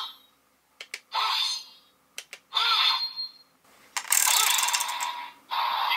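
Zangura Sword Memorial Edition toy sword being operated. Its trigger clicks twice, in pairs, and each set of clicks is followed by a short electronic sound effect from the toy's speaker. About four seconds in comes a longer, louder burst of noisy slash-effect sound.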